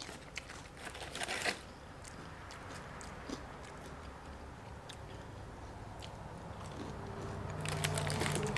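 Close-up crunching and chewing of crispy deep-fried jalapeño strips, crunchiest in the first second and a half, then quieter chewing.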